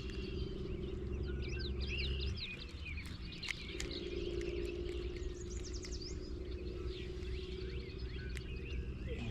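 Birds chirping and singing, many short calls and quick pitch glides, over a steady low hum.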